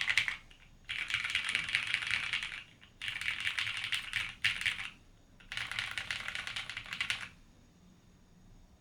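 Mechanical keyboard with lubed, filmed vintage Cherry MX Brown tactile switches on a polycarbonate plate, in a brass-weighted LZ REs case with BSP keycaps, being typed on fast: three runs of rapid key clacks of about two seconds each with short pauses between, stopping about a second and a half before the end.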